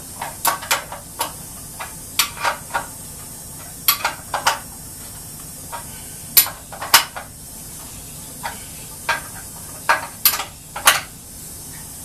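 Metal-on-metal clinks and clicks, irregular and often in pairs, as a hand wrench works the nut on a hold-down clamp bolt under a sawhorse's top rail.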